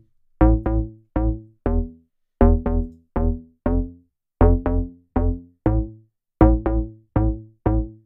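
Layered synth bass line: sub bass, a character bass and a detuned multi-voice wide bass layer. It plays short staccato notes in a repeating pattern of four notes every two seconds, each note with a deep bottom and a quickly fading brighter top. The added wide bass layer makes it wider in the stereo image and fuller.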